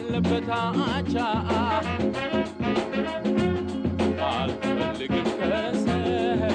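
Background music with a steady beat and a wavering melody line, in a swing or ska style.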